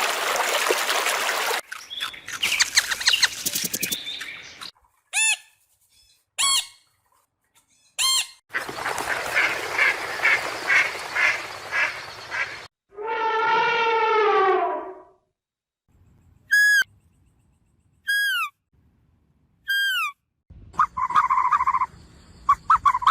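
A series of different animal calls, cut one after another: short chirps, a long call that falls in pitch, then three identical high calls sliding downward, about a second and a half apart.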